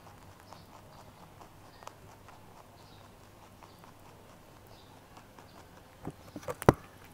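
A rabbit eating cauliflower: faint chewing clicks while it chews with its head raised, then, about six seconds in, a few loud sharp crunches as it bites into the cauliflower again, the loudest just before the end.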